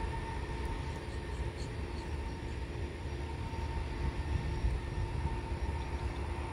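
Distant jet airliner's engines: a steady low rumble with a faint steady whine over it.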